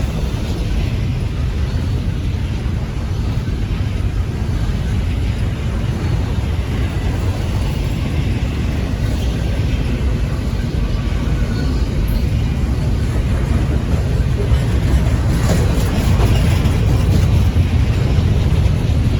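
Long intermodal freight train rolling by slowly: a steady low rumble of wheels on rail, with a few faint clicks about 15 to 16 seconds in.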